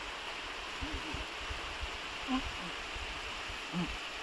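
Steady outdoor hiss with three short, soft, low hums or hoots spread through it.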